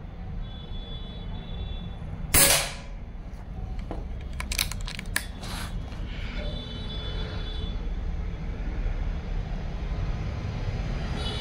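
A .177 Precihole PX100 Achilles PCP air rifle fires once about two and a half seconds in, a short sharp crack. A couple of seconds later comes a quick run of light clicks, over a steady low hum.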